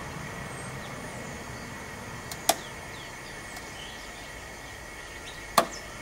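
Two sharp clicks, one about two and a half seconds in and a louder one near the end, from the strapped-down microwave oven's metal casing as the water-filled inner tube beneath swells under rising pressure. A steady hiss with a faint high tone runs underneath.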